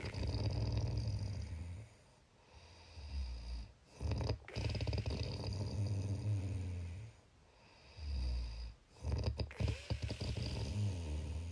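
A person snoring: three long snores about four seconds apart, each with a deep fluttering rumble, and quieter breaths between them.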